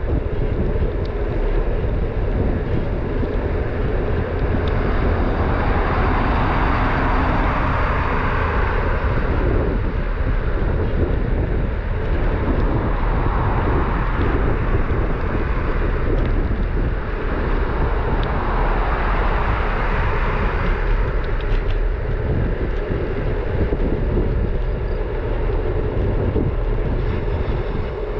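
Wind buffeting the microphone of a bicycle-mounted action camera over steady road rumble, with cars passing that swell and fade about six, thirteen and nineteen seconds in.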